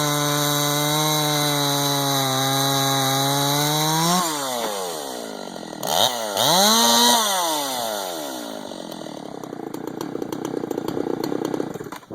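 Husqvarna 562XP chainsaw running at full throttle in a wood cut. About four seconds in it breaks free and the pitch jumps, then the revs fall. It is revved up and down once and then drops back to idle.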